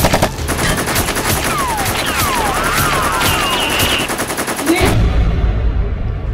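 Dubbed-in automatic gunfire sound effect: rapid, evenly spaced shots mixed with gliding whistles, cutting off abruptly about five seconds in and giving way to a low rumble.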